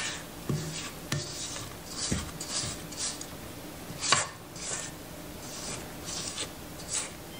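Silicone spatula scraping thick cake batter down the sides of a stainless steel stand-mixer bowl: a run of short, quick scraping strokes with a few light knocks.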